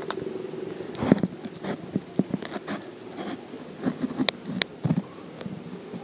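A run of irregular sharp clicks and rustles, densest from about a second in until near the end, over a faint steady hum.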